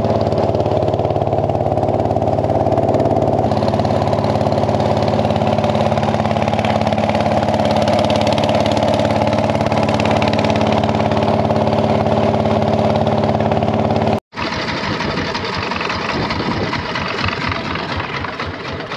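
Small motorboat's engine running steadily under way, a constant hum of even tones with water rushing past the hull. About fourteen seconds in the sound cuts out for an instant and comes back rougher and more rushing, with less hum.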